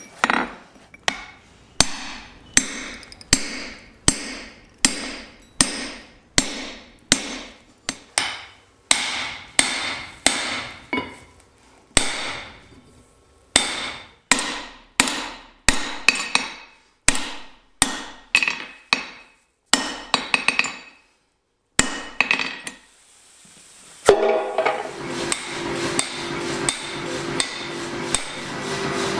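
Hand hammer striking red-hot steel on an anvil in a steady rhythm, about one and a half blows a second, each blow with a short metallic ring, while a hot cut chisel is forged. The hammering stops about 21 seconds in. About 24 seconds in, a steady machine hum with a low tone starts: the shop's power hammer running.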